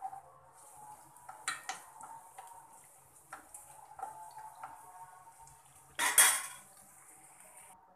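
Onions frying in oil in a pan with a steady high sizzle, stirred with a metal spoon that scrapes and knocks against the pan now and then. About six seconds in there is a louder metallic clatter as the spoon is laid on a steel plate.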